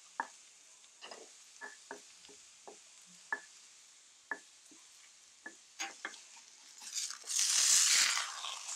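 Ribeye steak searing in a hot cast-iron pan: scattered sharp pops of spitting fat over a faint sizzle, then a loud burst of sizzling about seven seconds in as the steak is lifted with tongs.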